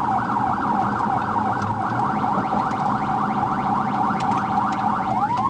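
Police patrol car's electronic siren on a rapid yelp, its pitch sweeping up and down several times a second. About five seconds in, a slower rising wail tone starts over it.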